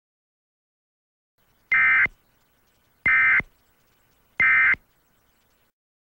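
Emergency Alert System end-of-message signal: three short bursts of SAME digital data tones, about a second and a third apart.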